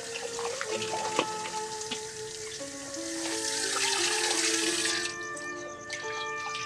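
Water running from a tap, swelling over a couple of seconds and stopping abruptly about five seconds in, with light knocks and clatter, over gentle melodic background music.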